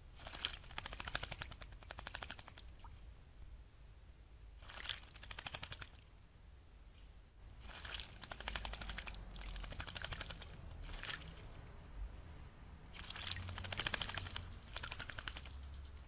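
American robin bathing in a shallow birdbath, beating its wings in the water in four bouts of rapid splashing with short pauses between them.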